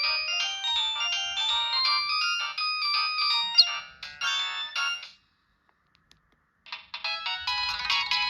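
Downloaded polyphonic ringtone playing a quick melody on a Samsung SGH-T809 mobile phone. It stops about five seconds in, and after a silent gap of about a second and a half the next tone starts.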